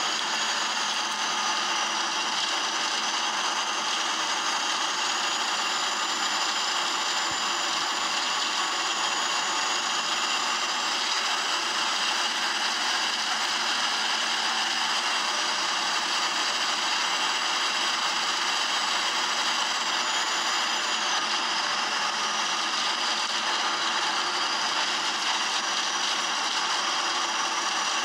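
Optare Solo bus engine running under way, heard from the rear of the passenger saloon: a steady loud mechanical din with rattling and high whines that rise and fall in pitch. The engine is unusually noisy, which the uploader takes for a fault.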